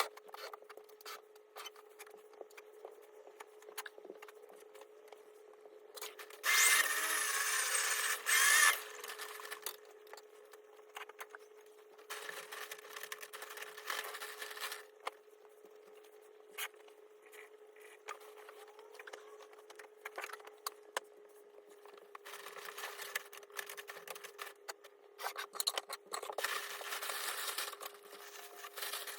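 Work on a wall-mounted air conditioner being taken apart: scattered clicks and knocks of parts being handled, and short runs of a power tool. The loudest run starts about six seconds in and lasts about two seconds, with quieter runs later on. A faint steady hum sits underneath.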